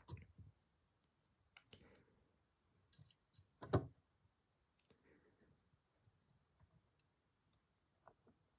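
Faint, scattered clicks and taps of fingers handling a die-cast Hino Profia model truck while fitting a small side mirror to its cab, with one sharper click about four seconds in.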